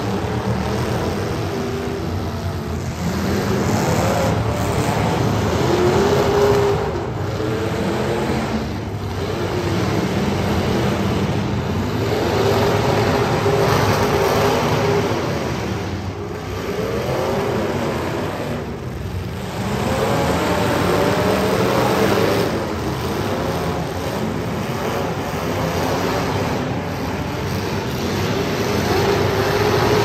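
Demolition derby cars' engines running hard, several at once, revving up and dropping back again and again so their pitch keeps rising and falling.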